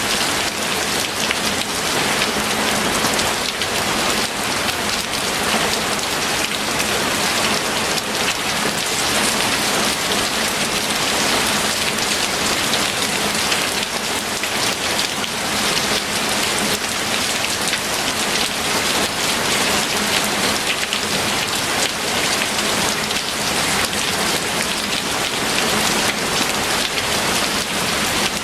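Steady rain falling, an even dense hiss that does not let up.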